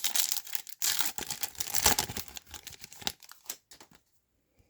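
Crinkling and tearing of a foil trading-card pack wrapper as it is ripped open and handled, dying away about three and a half seconds in.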